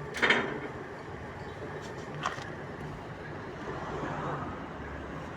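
Sheet-metal machinery in a workshop: a loud sharp metallic knock with a short ring about a quarter second in, a smaller click about two seconds later, over a steady low machine hum.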